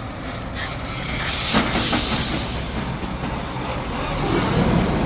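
Heavy vehicle's engine rumbling, with a loud burst of air-brake hiss about a second and a half in; the engine grows louder near the end.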